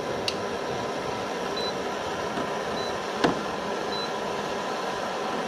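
Oxy torch hissing steadily as its flame heats a steel bolt seized into the aluminium engine by bimetallic corrosion, to free it off. Three short high beeps about a second apart come from the infrared thermometer, and a sharp click sounds a little after halfway.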